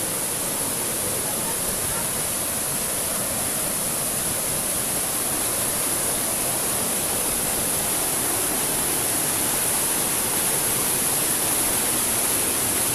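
Waterfall's steady rushing roar of falling water, growing slightly louder.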